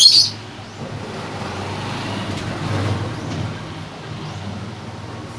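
A motor vehicle passing by, its engine hum and road noise building to a peak about halfway and then fading. A short, loud, high bird chirp sounds right at the start.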